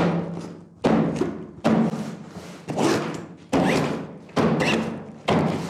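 Background music with a heavy, steady beat, about one hit a second, over held bass notes.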